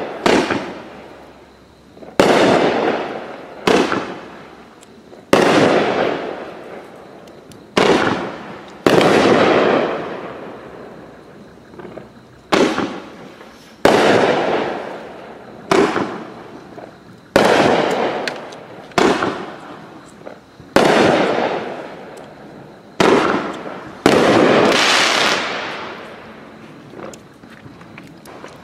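A Sunwing 'Packin Heat' 500-gram, 13-shot fireworks cake firing its shots in sequence: about a dozen sharp aerial bursts, spaced one to two and a half seconds apart, each dying away over a second or two.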